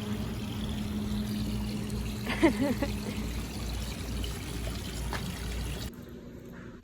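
Seawater washing and trickling among rocks as a steady rush. A short wavering call sounds about two and a half seconds in. The water sound cuts off suddenly near the end.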